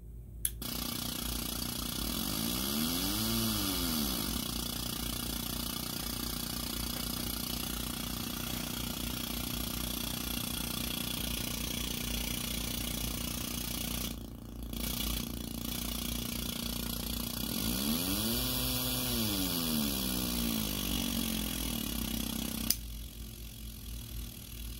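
Homemade modular-synth LFO running far too fast for a low frequency oscillator (its slowest is about 40 Hz), heard as a harsh continuous buzz through a small guitar amp. Twice its pitch sweeps up and back down as the rate is turned, and it cuts off with a click near the end.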